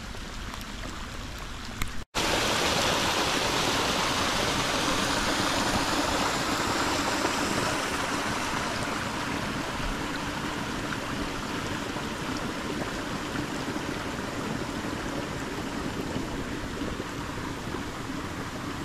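A small stream of rainwater runoff rushing over grass and through brush, swollen by a night of heavy rain. The steady rush of water cuts out for an instant about two seconds in and comes back louder.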